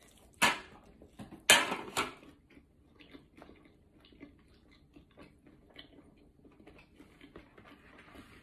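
A person biting into a slice of pizza, with a few loud bites in the first two seconds, then chewing with many faint clicks.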